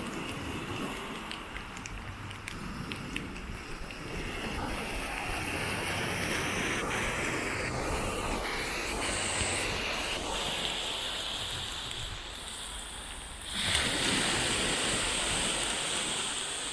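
Small surf breaking and washing up a sandy beach, an uneven rushing hiss that swells and ebbs, with wind on the microphone. The rush grows suddenly louder about three-quarters of the way through.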